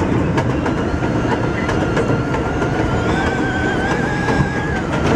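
New York City subway train on the 7 line running at speed on elevated track: a steady rumble with the clickety-clack of wheels over rail joints, heard from inside the lead car. A thin high whine comes in about two seconds in, steps up in pitch about a second later and fades out near the end.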